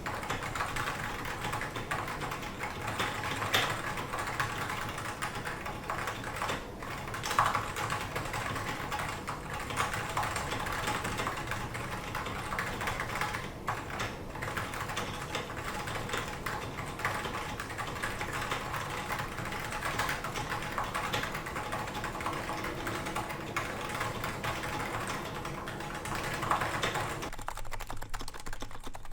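Steady, fast typing on a Topre keyboard: stock, unlubed Realforce R2 Topre switches in a steel plate with Realforce R2 keycaps, giving a continuous run of muted keystrokes. There are a couple of louder strokes, about 3.5 and 7.5 seconds in.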